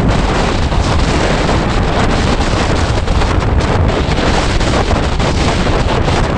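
Gale-force wind of a ground blizzard buffeting the microphone: a loud, unbroken rush with a heavy low rumble, flecked with many brief crackles.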